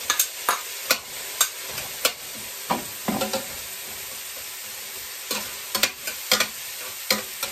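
Vegetables frying in a stainless steel pan, a steady sizzle, while a metal turner stirs them, scraping and clicking against the pan many times at an irregular pace.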